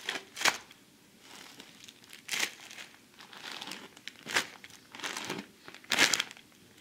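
Clear plastic bags holding stacks of baseball cards crinkling as they are handled, in about six short rustles spread over several seconds.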